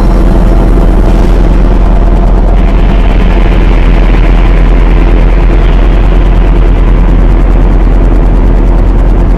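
Loud dark ambient electronic drone from a Maneco Labs Grone synthesizer processed through a Mutable Instruments Clouds granular module: a dense, steady low hum with layered sustained tones and a grainy noise texture, with a brighter hiss coming in about two and a half seconds in.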